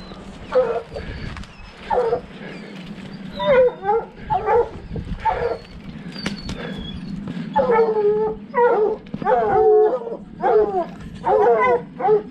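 Hunting hounds baying treed at the foot of a tree, the sign of a mountain lion held up in it. Single bays come a second or more apart at first, then quicker and almost without a break from a little past halfway.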